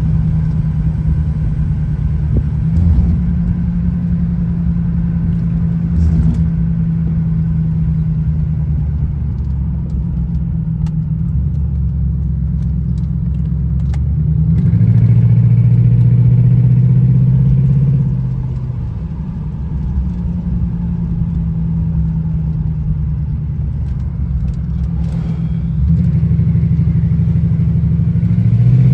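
Supercharged V8 of a Jaguar XJR running while the car is driven, a steady low engine and road hum. It gets louder and deeper for a few seconds around the middle, then settles back.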